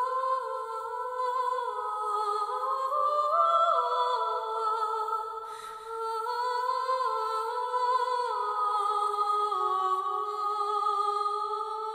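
Slow, calm outro music: a few sustained tones moving together in slow steps as a wordless melody, dipping briefly about six seconds in.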